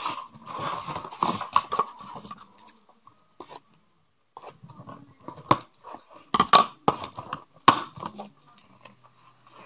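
Cardboard doll box and plastic packaging being handled, with rustling and crinkling for the first couple of seconds. Then come several sharp snips of scissors cutting the packaging ties, the loudest about five and a half, six and a half and almost eight seconds in.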